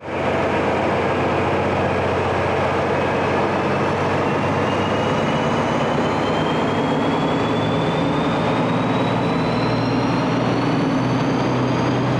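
DB Class 218 diesel-hydraulic locomotive pulling a regional train out under power. Loud, steady engine noise with a high whine that rises slowly in pitch as it accelerates away.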